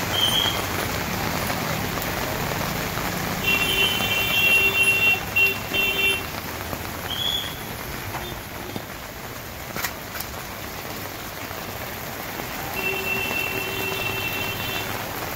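Heavy rain falling steadily. A vehicle horn sounds in a run of long and short honks about three seconds in, and again near the end.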